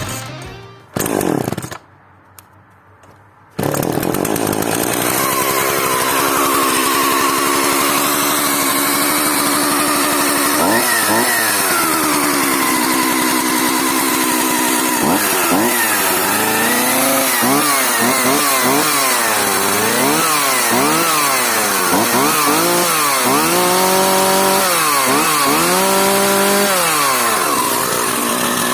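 Partner 5000 Plus vintage two-stroke chainsaw running, coming in about three and a half seconds in after music fades out. From about ten seconds on its engine is revved up and down again and again, the pitch rising and falling every second or two.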